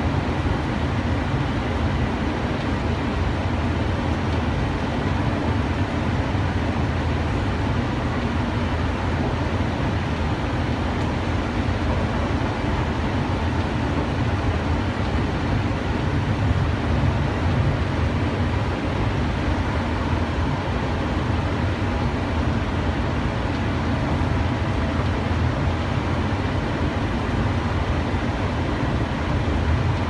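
Ride noise of a cable-drawn Doppelmayr Cable Liner people-mover car heard from inside the cabin as it runs along its guideway: a steady low rumble with a faint whine over it. It swells slightly about halfway through as a train going the other way passes.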